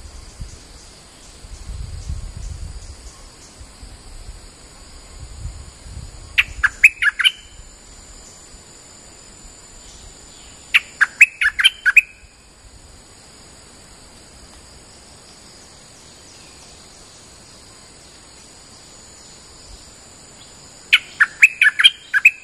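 Stripe-throated bulbul song: three short bursts of quick, loud notes, each lasting about a second, several seconds apart, over a steady high-pitched drone.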